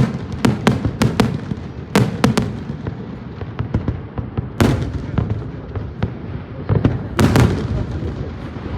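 Fireworks going off: a rapid, irregular series of sharp bangs and pops, some with a rolling echo, over a continuous low rumble of further bursts.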